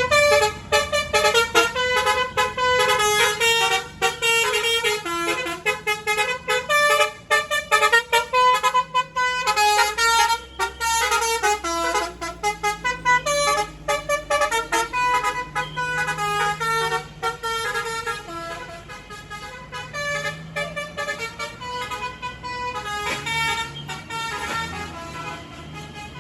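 A bus's telolet basuri musical air horn playing a fast tune of short notes, several horn tones sounding together. It gradually fades over the last several seconds.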